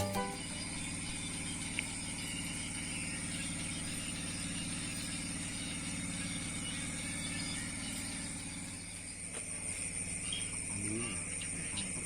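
Steady outdoor background: a low motor-like hum under a constant high-pitched insect drone, with faint voices near the end.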